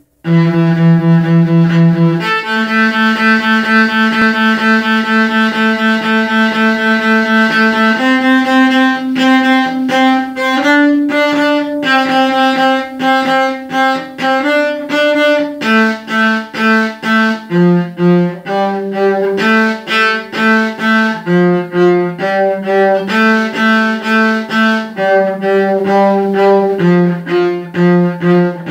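Solo cello, bowed: long held notes for the first several seconds, then from about eight seconds in, shorter separate bow strokes moving from note to note in a steady rhythm.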